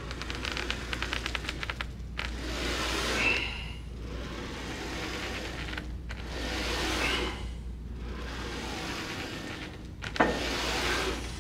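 Three forceful, breathy exhales about four seconds apart, one with each slow hack squat rep, some with a faint whistle through the lips. A light, rapid rattle from the plate-loaded hack squat machine comes near the start, over a steady low hum.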